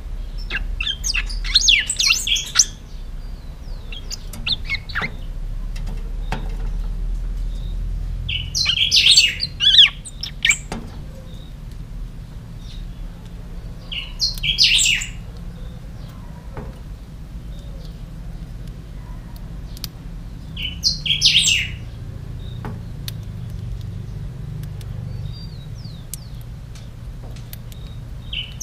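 Young caged pica hueso songbird singing: short, high-pitched song phrases of a second or two, about five in all, a few seconds apart, with faint ticks between them.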